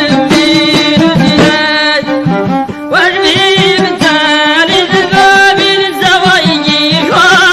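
Old Middle Atlas Amazigh folk song: singing over a wavering instrumental melody with a steady beat.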